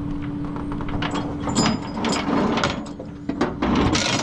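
Tie-down ratchet on a car-carrier flatbed being worked and released: a run of irregular metallic clicks and clanks. A steady low hum lies underneath and drops out about three seconds in.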